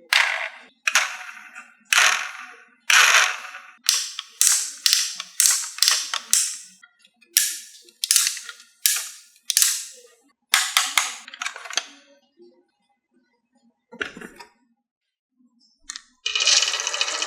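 Pieces running down a HABA wooden marble track: a quick series of sharp wooden clacks, about two a second, each ringing briefly, as they drop from ramp to ramp. The clacks stop about twelve seconds in; a single thump follows, and near the end a continuous clattering rattle of rolling starts.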